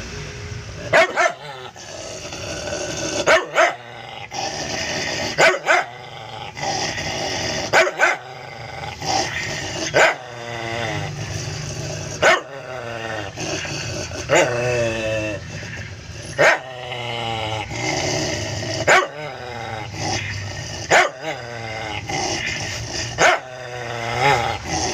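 An aspin dog in a wire crate growling over and over. Each growl lasts about a second and a half and ends in a short sharp bark, and the cycle repeats about every two seconds.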